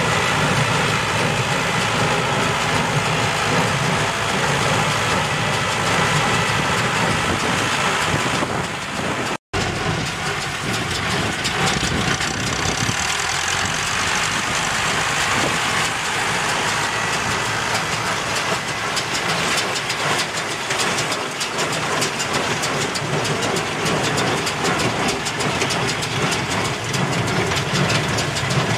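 Diesel farm tractor running steadily while pulling a working small square baler, engine drone mixed with the baler's mechanical clatter. The sound cuts out for an instant about nine seconds in.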